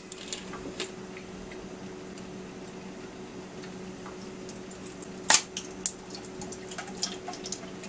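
Lemon juice being squeezed from a plastic squeeze bottle into a plastic measuring cup: light handling sounds, with a sharp click about five seconds in and a smaller one just after. A steady low hum runs underneath.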